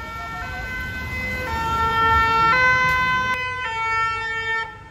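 Emergency vehicle's two-tone siren, alternating a high and a low note about once a second. It grows louder, then fades and stops as the vehicle passes, over a low traffic rumble.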